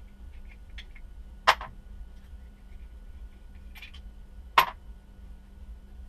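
Two small red top caps taken off a Marzocchi Dirt Jumper 1 fork and set into a plastic parts tray: two sharp clicks about three seconds apart, with faint handling ticks between.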